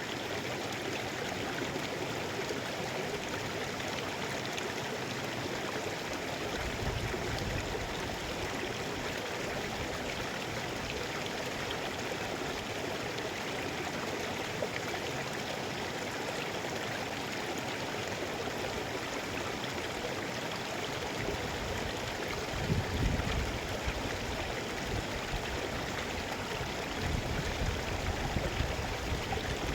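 Mountain river rushing steadily over rocks, a constant full wash of water, with a few brief low rumbles about a third of the way in and again near the end.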